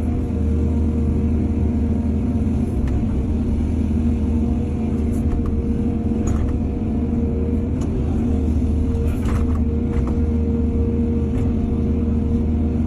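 Excavator's diesel engine running steadily with a constant low rumble and a held hum, a few faint clicks and knocks over it.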